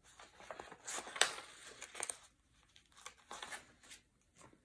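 Paper pages of a picture book rustling as they are handled and turned by hand, in several short swishes, the loudest about a second in.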